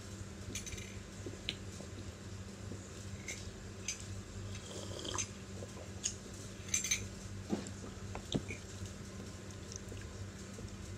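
Fork clinking and scraping against a plastic bowl as pasta is picked up, with scattered small clicks and a few sharper taps about six to eight seconds in, over a steady low hum.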